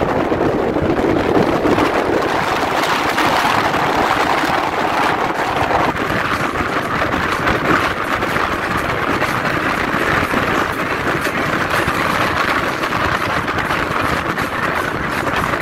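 Car driving at speed: steady engine, tyre and wind noise, with the engine note changing about six seconds in.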